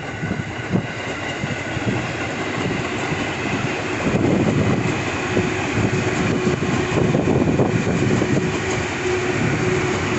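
A train passing close by, its wheels clattering over the rail joints. A steady tone rises out of the noise about four seconds in and holds to the end.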